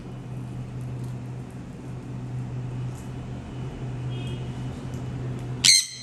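A parrot gives one short, shrill squawk near the end, over a steady low hum and a few faint clicks.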